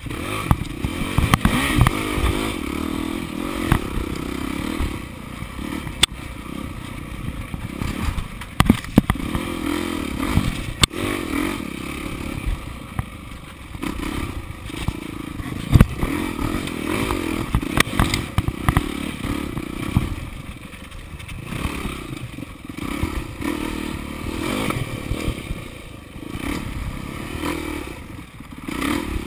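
Dirt bike engine revving up and down over and over as it is ridden hard through rough trail. Repeated sharp knocks and clatter run through it.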